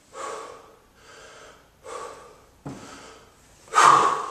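A man breathing hard through kettlebell snatches with a 32 kg bell: a sharp, forceful exhale about every two seconds with quieter breaths between, the strongest near the end.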